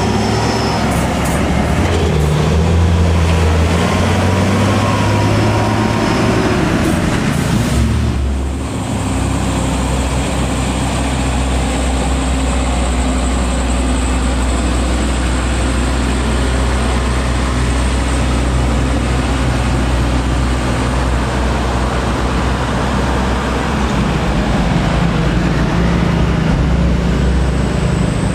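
Heavy diesel truck engines labouring up a steep climb: a loud, low drone. About eight seconds in it dips briefly, then settles into a steadier, deeper drone.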